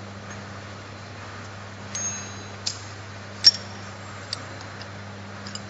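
Sharp metallic clinks of a tool and steel parts knocking against a ZP9B rotary tablet press while its mould is being removed: about four clinks with a brief ringing, the loudest about three and a half seconds in. A steady low hum runs underneath.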